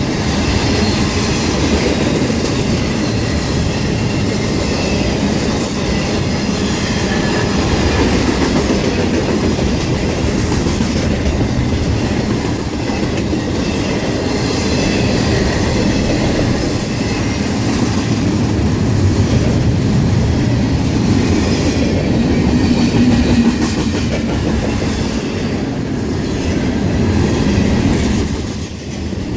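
Intermodal freight cars of a passing train rolling by close at speed: a steady loud rumble of steel wheels on the rails that dips briefly near the end.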